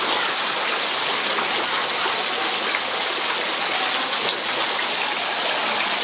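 Water rushing and splashing steadily, a dense even hiss of falling, flowing water.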